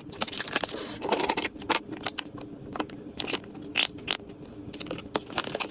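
Food containers and packaging being handled and set down while restocking a fridge: an irregular run of light clicks, knocks and crinkling rustles over a faint steady hum.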